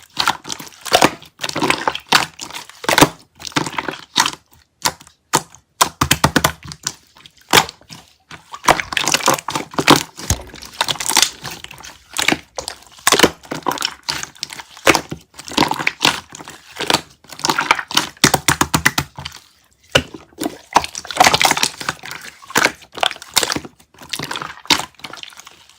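Clear, colourless slime being squeezed and kneaded by hand, giving irregular bursts of sharp crackling pops and squishes with brief pauses between handfuls.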